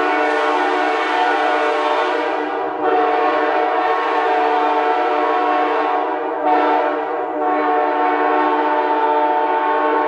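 Sand-cast K3L locomotive air horn with a random set of bells, blowing one long unbroken chord. Its tone dulls about three seconds in and brightens briefly a little past halfway.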